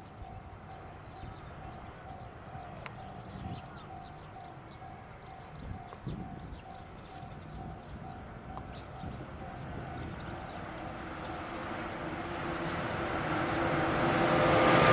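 A level-crossing alarm dinging at an even, repeating pace, with birds chirping, while a JNR 115 series electric train approaches; its wheel and motor rumble grows steadily louder over the last few seconds until it drowns out everything else.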